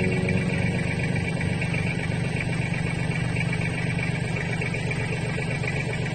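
Mahindra 1526 tractor's diesel engine running steadily at an even speed.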